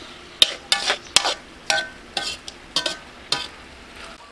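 Metal spatula scraping and clanking against a metal wok while stir-frying chicken feet, about seven ringing strokes in three seconds.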